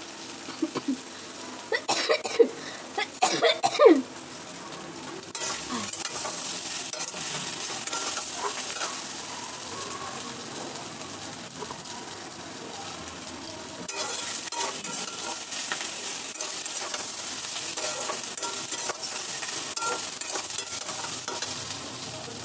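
Food frying in hot oil in a pan: a few loud knocks and scrapes of a utensil against the pan in the first four seconds, then a steady sizzle.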